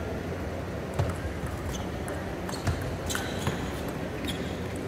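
Table tennis ball knocking off the table and bats in a few irregular sharp clicks, over a steady hall hum.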